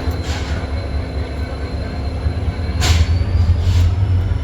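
Twin WDG4 diesel-electric locomotives, EMD 16-cylinder two-stroke engines, running with a steady low hum while pushing a goods train back. Short hissing bursts cut in three times, the loudest nearly three seconds in.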